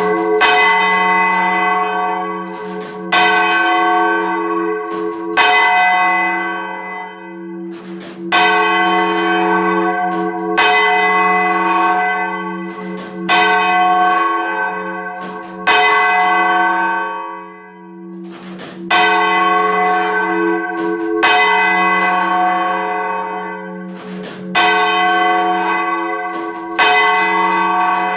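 Third bell of the world's heaviest ring of four change-ringing bells, rung full circle and heard close up in the belfry. It strikes about every two and a half seconds, with one longer gap about two-thirds of the way through, and each strike rings on over the bell's steady low hum.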